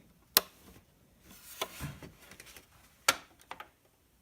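Handling noise: a sharp click about half a second in, a brief soft rustle, then another sharp click about three seconds in, followed by a few faint ticks.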